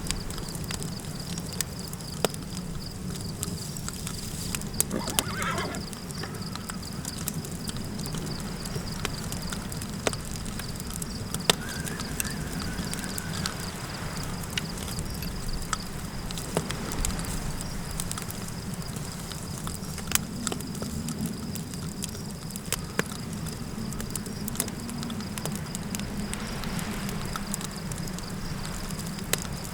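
Campfire crackling with sharp pops over a low wind rumble, and a horse whinnying about five seconds in, followed by a second, steadier high call a few seconds later. A thin, steady high trill sits over everything.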